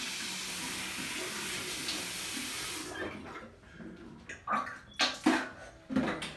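Bathroom sink tap running steadily, shut off about three seconds in, followed by a few short, sharp knocks.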